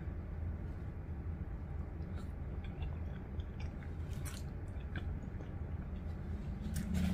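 A person chewing a mouthful of spaghetti close to the microphone, with a few faint clicks, over a low steady hum.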